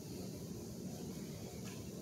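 Quiet room tone: a steady low rumble, with a faint tick near the end.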